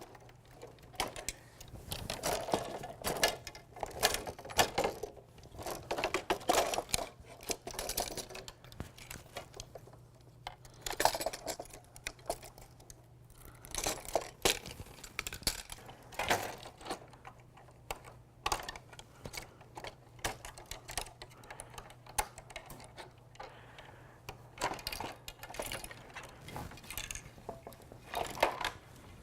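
Folding kayak frame parts being taken apart: irregular clicks, knocks and clatter as rods are popped off their fittings and frame pieces pulled free, over a faint steady hum.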